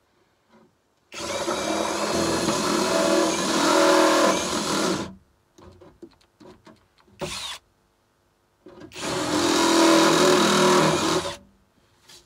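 Power drill with a stepped bit cutting through thin sheet material, in two runs of about four and three seconds. Short clicks and knocks come between the runs.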